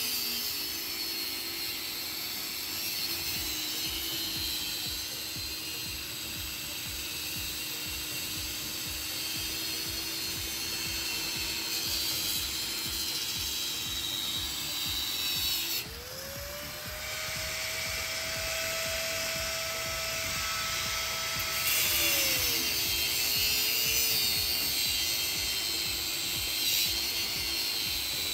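Workshop machinery and tool noise. About halfway through, a motor spins up to a steady higher whine, runs for several seconds, then winds back down.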